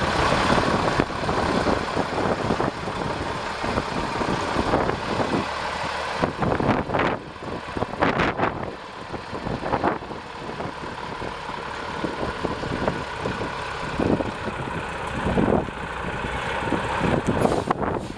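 Cummins LTA10 inline-six turbo diesel of a 1989 International F2674 silage truck running as the truck is driven slowly around.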